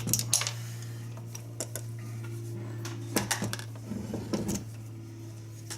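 Small metal parts clicking and clinking as a pin is worked into an animatronic head mechanism, over a steady low hum.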